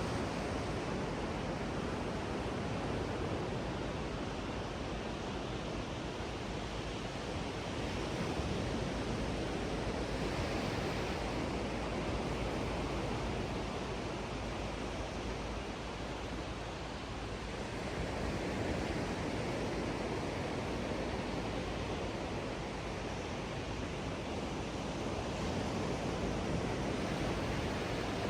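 Ocean surf washing onto a beach: a steady rush of waves that swells and eases slightly.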